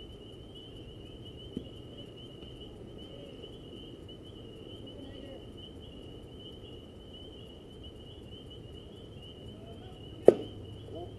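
Steady, high-pitched chirring of night insects, with one sharp, loud crack of a baseball impact at home plate about ten seconds in, as a pitch arrives.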